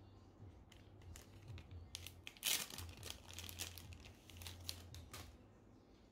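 Clear plastic packaging bag crinkling and crackling as it is opened. The crackles come in a dense run starting about two seconds in, loudest at first, and stop a second before the end.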